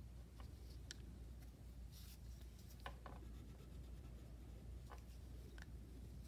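Faint wax crayon scratching on paper, with a few light clicks of crayons being handled, over a low steady hum.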